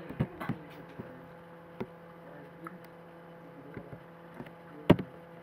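Scattered computer keyboard key clicks over a steady electrical hum, with one much louder click near the end.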